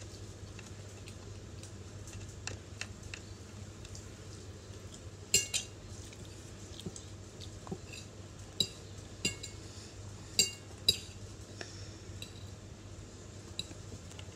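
Eating utensils clinking and scraping against dishes: scattered sharp clinks with a brief ring, the loudest a couple about five seconds in and several more between about eight and eleven seconds in, over a low steady hum.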